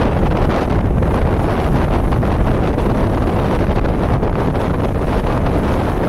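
Steady, loud wind buffeting the microphone over choppy water, with waves breaking and splashing.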